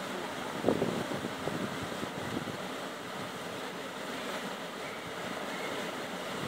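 Steady rushing of river water spilling over rocks in a small cascade, mixed with wind on the phone's microphone, with a short louder burst under a second in.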